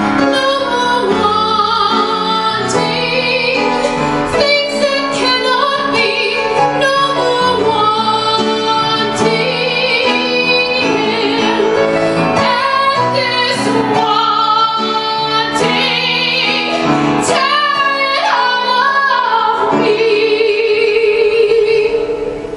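A woman singing a musical theatre song with piano accompaniment, finishing on a long held note with vibrato.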